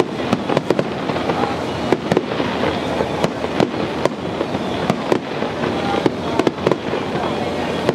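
Aerial fireworks going off in quick succession: many sharp bangs at irregular intervals, several a second, over a constant dense noise of bursting and crackling.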